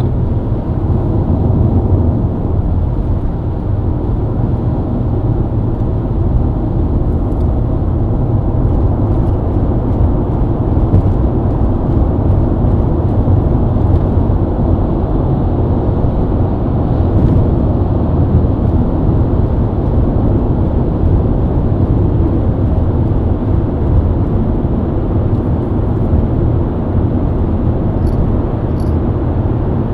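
BMW E90 323i's inline-six engine running steadily at highway cruise, with tyre and road noise, a constant low drone without revving.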